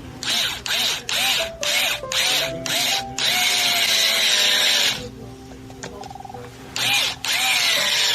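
Power drill driving a buttpad screw into a stock hole that has been plugged with a toothpick and super glue. It runs in about six short spurts, each whine rising and falling, then a longer steady run. After a pause come two more runs near the end, as the screw bites into the plugged hole and snugs down tight.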